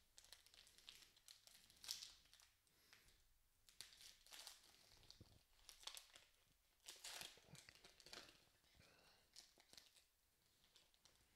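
Foil wrapper of a Panini Elite football card pack crinkling faintly as it is torn open and pulled apart, with several short crackles about 2, 4 and 7 seconds in.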